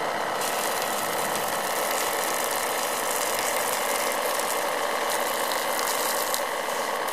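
A small pump motor running steadily with a fast, rattling whir.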